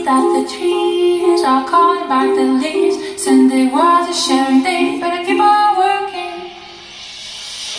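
Recorded music played through Heco Direkt floor-standing loudspeakers in a small room: a woman singing a melody over a repeating figure of short notes. The music grows quieter near the end.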